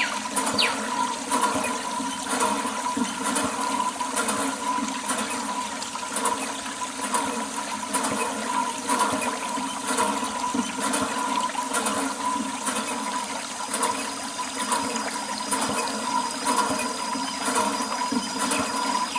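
Steady rush of running, splashing water, as used to wash down a tractor.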